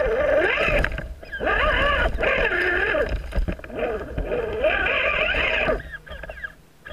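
An RC rock crawler's electric motor and gears whining in three bursts of throttle of about two seconds each, with short pauses between them. The pitch wavers up and down within each burst. A low rumble runs underneath.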